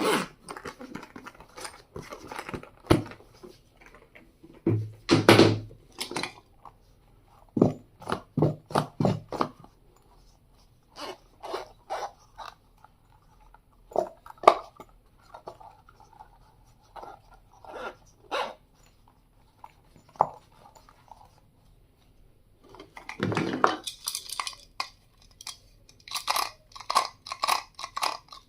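Stationery items and their packaging handled during unboxing: irregular clicks, taps and crinkling rustles, growing busier near the end.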